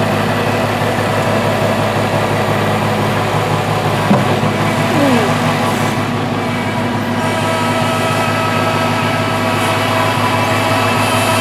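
Kubota L3301 HST tractor's three-cylinder diesel engine running steadily as it works the front loader against a large log. A short falling squeal comes about five seconds in.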